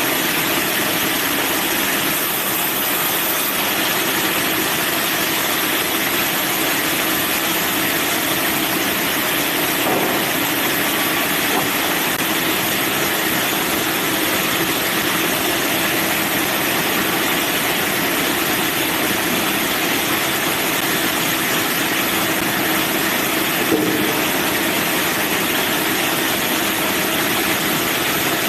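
Band sawmill running steadily, a constant loud machine noise with a low hum, broken by two faint knocks partway through.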